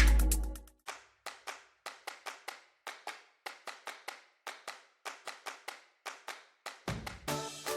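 A long run of short, sharp strikes, each fading quickly, at an uneven three or four a second.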